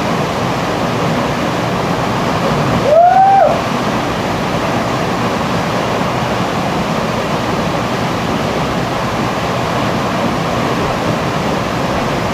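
Waterfall rushing steadily, with a brief loud cry about three seconds in.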